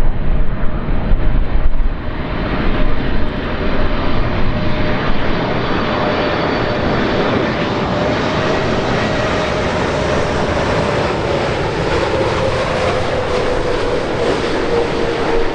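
Boeing 747-8's four GEnx-2B turbofan engines on landing approach: a continuous jet rush with a steady tone that slowly falls in pitch over the second half as the jet passes. Wind gusts on the microphone in the first two seconds.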